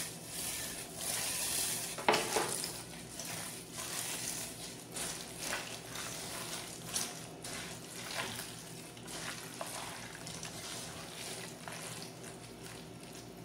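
Gloved hand mixing a wet mutton marinade of yogurt, spices and crushed fried onions in an aluminium pot: an uneven run of wet mixing strokes, with a sharper one about two seconds in.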